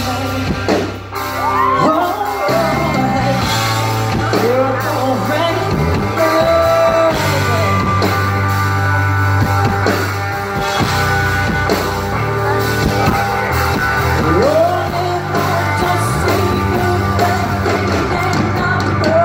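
A female lead singer performing a slow rock ballad live with a full band, her held, gliding notes over steady bass and sustained chords. The voice drops out for a few seconds in the middle while the band plays on, then comes back.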